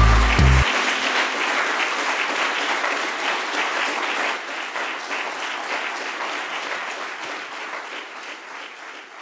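Audience applauding steadily, the sound slowly fading away as the clapping dies down. A short low tone sounds under the clapping at the very start.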